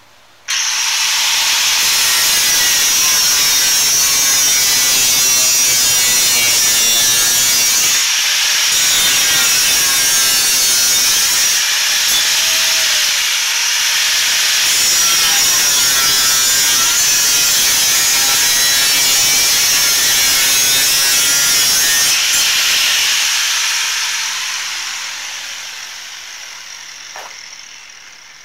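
Corded angle grinder cutting metal at a vehicle's rear brake hub: it starts abruptly, runs steadily with a high grinding screech of the disc on steel, and is switched off about 23 seconds in, winding down as it slows. The metal is being trimmed to make room for a larger brake rotor.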